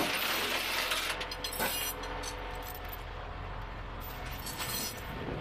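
Flatbed rollback tow truck running with its tilted steel bed being worked, giving a steady mechanical hum with a hiss at first and a few sharp metal clanks about a second in.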